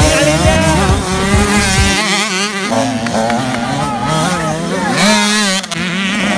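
Motocross dirt bike engine revving up and down, its pitch rising and falling quickly as the throttle is opened and eased.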